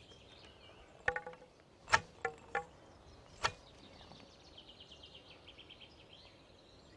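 Boilies fired from a throwing stick plop into the lake one after another: about five short, sharp plops between one and three and a half seconds in. An insect chirps in quick rhythmic runs behind them, clearest near the end.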